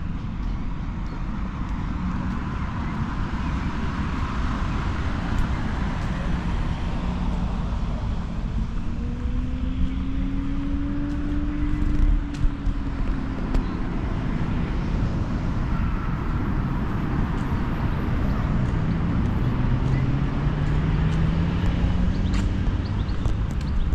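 Street traffic: steady road noise of cars going past, with engine tones rising and falling as vehicles pass, and a few short knocks about halfway through.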